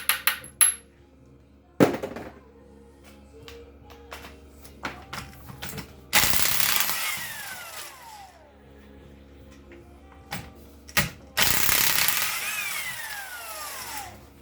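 Air impact wrench hammering in two bursts of about two seconds each, each with a whine that falls in pitch as the tool spins down, undoing the main bearing cap bolts of a seized Austin-Healey six-cylinder engine. Sharp metallic clinks at the start and a single knock about two seconds in come from the sockets and tools.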